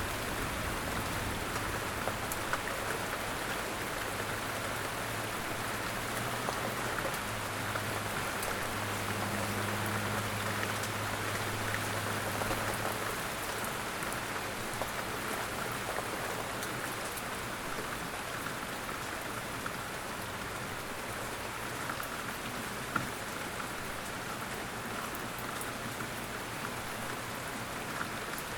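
Steady rain falling, an even hiss with scattered ticks of individual drops. A faint low hum runs under it through the first half and fades out about halfway through.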